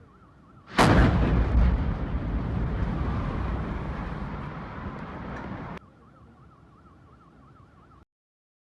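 A large explosion: a sudden blast about a second in, then a rumbling roar that slowly fades for about five seconds before cutting off abruptly. A faint warbling alarm tone is heard before and after the blast.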